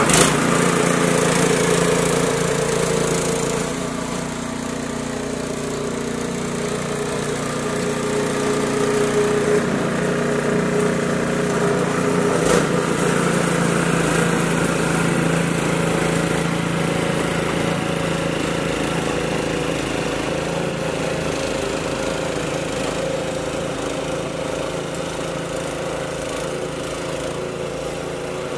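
Gas-powered two-stage snow blower engine running steadily while throwing snow, growing gradually fainter as the machine moves away. A single sharp click sounds about halfway through.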